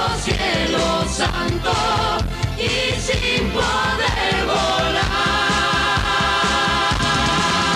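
Live band playing an upbeat Mexican medley over a steady beat, with several singers singing together. From about five seconds in, the voices hold a long note over the band.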